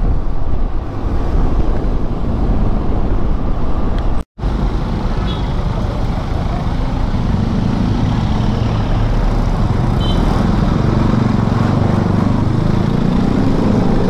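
Honda Dio 110 cc single-cylinder scooter engine running while riding, mixed with wind and road noise on the action-camera mic. The sound cuts out for a split second about four seconds in, and the engine hum comes through more clearly in the second half.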